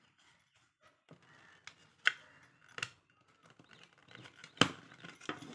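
Hard plastic parts of a brush-cleaning box clicking and tapping as small green plastic fittings are pressed into place by hand. Several sharp separate clicks with light handling rustle between them, the loudest click near the end.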